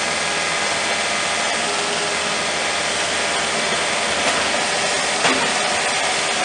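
Engine of a trench-digging machine running steadily as it cuts the trench, with a single sharp knock about five seconds in.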